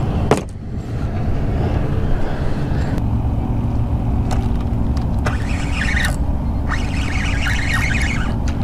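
A steady low engine hum comes in about three seconds in, over rough wind noise on the microphone. A sharp click sounds just at the start.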